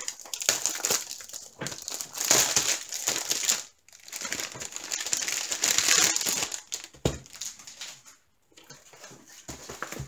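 Clear plastic packaging sleeve crinkling and rustling as a rolled diamond painting canvas is handled and pulled out of it, in two long stretches with a short pause between, and a single low knock about seven seconds in.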